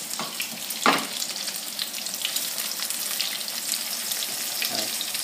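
Egg-battered flounder fillets sizzling and crackling as they shallow-fry in very hot canola oil, with a sharp knock of the utensil against the pan about a second in as the fillets are turned.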